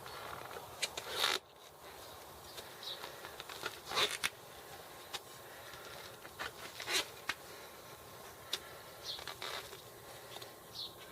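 Screwdrivers used as tyre levers scraping and clicking against a bicycle wheel rim as an old rotted tyre bead is pried over it. Scattered clicks and several short scrapes, the loudest about a second in, at about four seconds and at about seven seconds.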